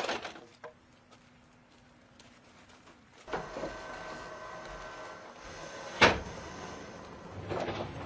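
Wooden knocks of logs being levered along a rail track, then, from about three seconds in, old sawmill machinery running steadily with one sharp loud knock about six seconds in and more clatter near the end.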